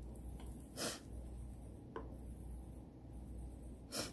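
Quiet handling noise from hands working a silicone spatula, a card and curling ribbon on a cutting board: two short rustling sounds about three seconds apart and a couple of faint clicks, over a low steady hum.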